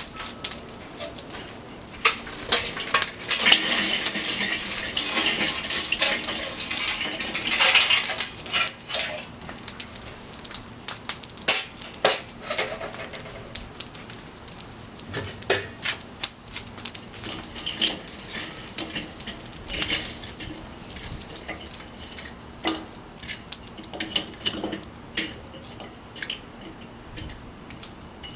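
Lit charcoal being dumped from a chimney starter into a kettle grill: a dense clattering, hissing rush of coals for several seconds starting about two seconds in, then scattered clicks and clinks of coals and metal.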